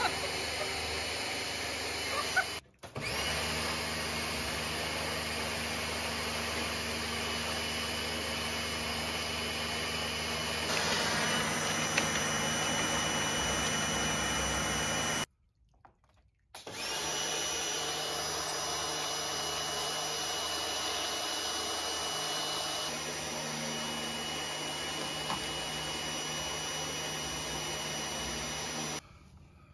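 A motor running steadily with a high whine over a low hum, in three stretches cut apart by abrupt silences about 3 s and 15 s in.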